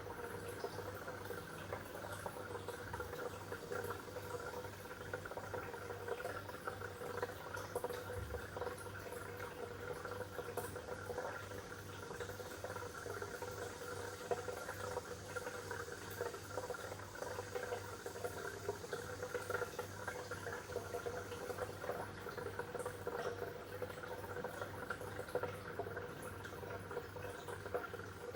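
Water bubbling and gurgling steadily over a low, constant hum.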